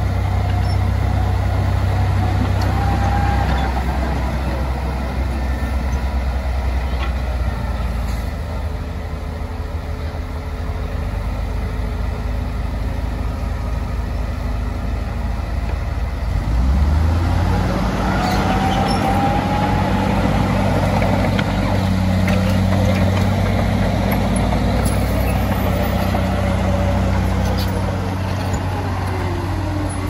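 Heavy construction machine's diesel engine running steadily. About sixteen seconds in, the engine note steps up and stays higher as it revs up under load.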